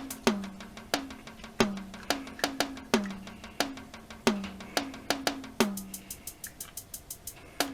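Background music: a percussion beat of sharp, wood-block-like clicks with a low pitched drum hit that drops slightly in pitch, the strongest hits coming a little over a second apart.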